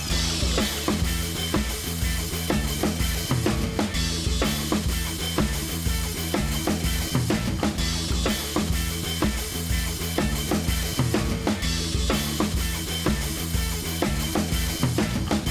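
Background music: a band track with drum kit, bass and a steady beat.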